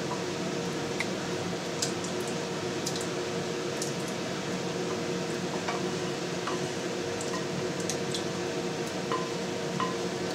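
Wooden spatula scraping thick tomato-and-onion sauce out of a frying pan into a ceramic pot: soft squelching of the sauce with a few light taps of the spatula on the pan, over a steady background hum.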